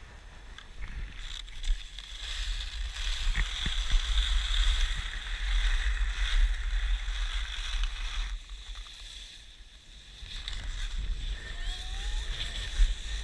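Wind buffeting the GoPro's microphone with a low rumble, over the rushing hiss of skis sliding on packed snow; it drops away for about two seconds past the middle, then builds again as the skier speeds up.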